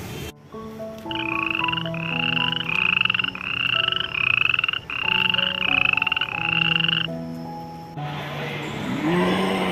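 Frog croaking: a run of about nine evenly spaced croaks, a little under one a second, over a simple tune of held notes. It stops about seven to eight seconds in and gives way to outdoor background noise.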